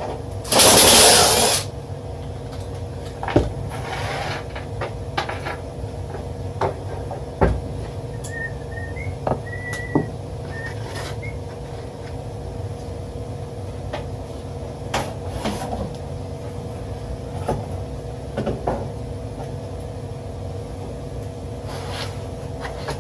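Hand tools and metal blower parts being handled during a furnace blower repair: scattered clicks and knocks, with a loud rasping noise about a second in, over a steady background hum.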